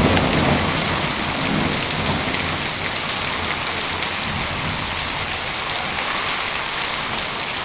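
Heavy rain pouring steadily onto roofs, pavement and the yard, with a low rumble of thunder at the start that fades away over the first two or three seconds.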